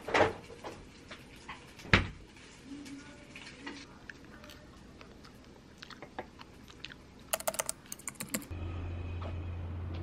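Scattered clicks and taps of wooden chopsticks and tableware against a plate, the loudest near the start and about two seconds in, with a quick run of clicks near the end. Then a steady low hum begins.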